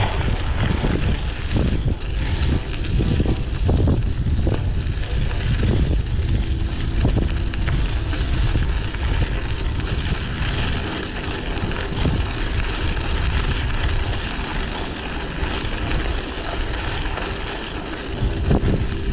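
Wind buffeting the microphone of a camera on a moving bicycle: a steady rumble that stays loud throughout.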